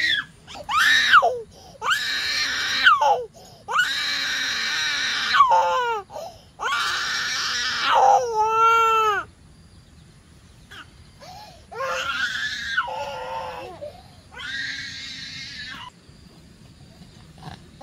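A young child crying loudly in a series of long wails, several of them falling in pitch at the end, with a short lull about nine seconds in before two more cries.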